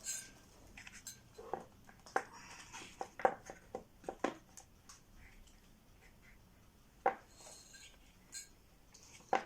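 Scattered light clicks and knocks of hard parts being handled and fitted together while a shelf is slotted into a small shelf unit.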